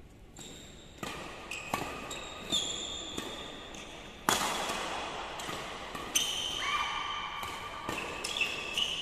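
Badminton rally: rackets striking the shuttlecock in sharp cracks every second or two, the loudest a little under halfway through, with court shoes squeaking on the court mat in held squeals between the hits.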